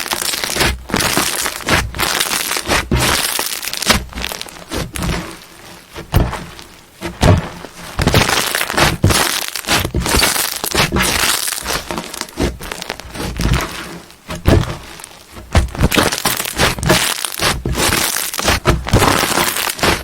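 Crunchy slime being crushed, giving dense crackling and popping with frequent sharp cracks, easing off briefly twice.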